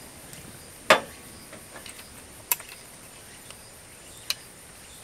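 A knock about a second in, then two sharp ticks, from a hand coffee grinder and its crank handle being handled. A steady high insect drone runs underneath.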